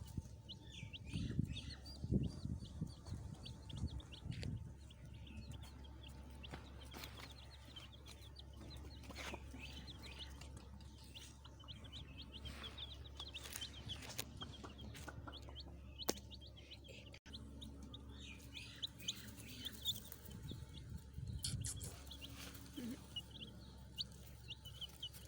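Baby chicks peeping continuously, many short high chirps overlapping. There are a few low thumps in the first few seconds and again near the end.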